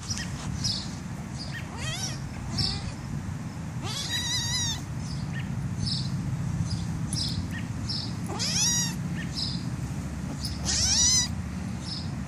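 Black kitten meowing while being tickled: four longer high-pitched calls that sweep upward and waver, with shorter squeaks in between.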